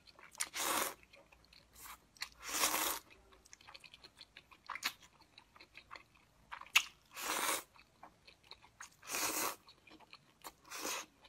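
A person slurping up thick, sauced potato-starch noodles and chewing them wetly. There are about four loud slurps of half a second or so, with small smacking mouth clicks between.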